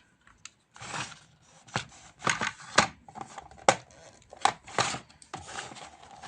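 Plastic toy parts of a Polly Pocket playset clicking, knocking and scraping as they are handled and pushed while trying to close the compact, in irregular short bursts.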